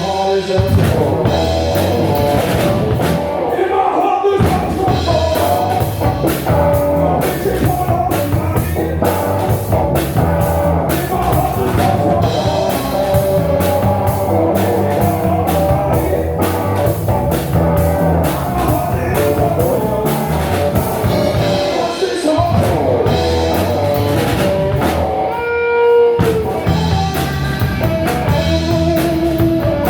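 Live blues band playing a song: electric guitar over a steady drum-kit beat and bass, with a long held guitar note about three-quarters of the way through.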